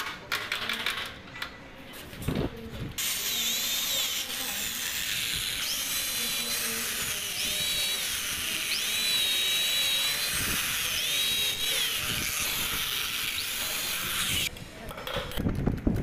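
Electric hand drill boring pilot holes into the wooden door frame through the screw holes of a night-latch keeper plate. It starts about three seconds in and runs steadily for about eleven seconds, its whine rising and falling several times, then stops just before the end. A few light handling clicks come before it starts.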